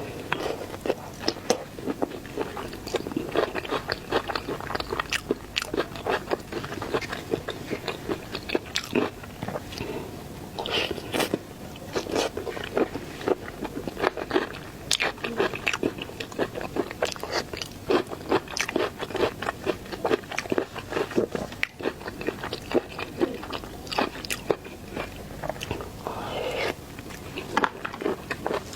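Close-miked eating of shrimp: a steady run of crunchy bites and chewing, with sharp crackles all through.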